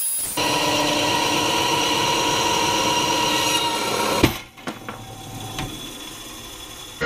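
Bandsaw cutting through a block of cured epoxy resin and wood: a loud, steady whine with many tones. About four seconds in there is a sharp knock, and the sound drops to a quieter run with a few ticks.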